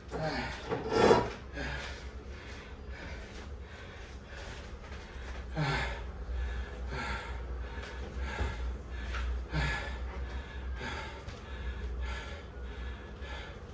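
A person breathing hard in quick, rhythmic breaths, about two a second, with a few short voiced grunts or gasps, the loudest about a second in. A steady low hum runs underneath.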